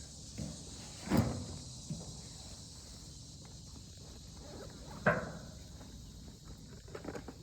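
A steady high chorus of night insects, with two sharp knocks about a second in and about five seconds in, and a few light clicks of gear being handled.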